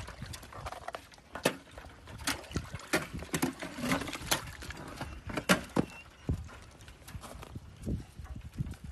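Thin sheets of ice cracking and knocking against a galvanized metal water trough and clattering onto frozen ground as a wolf pulls them from the water with its teeth: a string of irregular sharp cracks and clacks.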